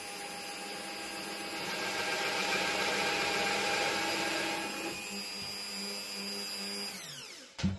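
Bosch bench drill press running steadily while a large Forstner bit bores into wood, louder and rougher from about a second and a half in until about five seconds. Near the end the motor is switched off and winds down, its whine falling in pitch.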